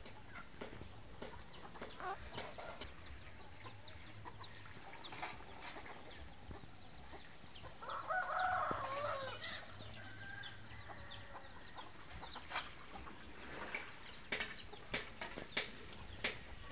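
Village chickens: a rooster crows once about eight seconds in, among clucking and many short, high bird chirps.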